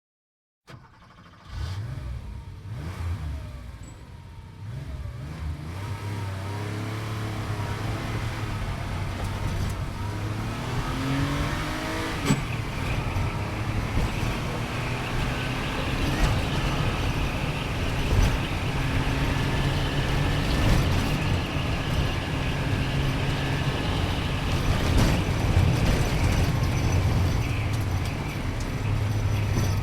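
Sports car engine and road noise heard from inside the cabin while driving. The engine pitch climbs and then drops sharply about twelve seconds in, and the car then runs on with a steady drone.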